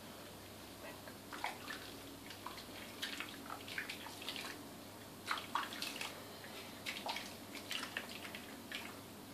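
Hands splashing and scooping soapy water over a guinea pig in a bidet basin: irregular small splashes and drips that come in short clusters.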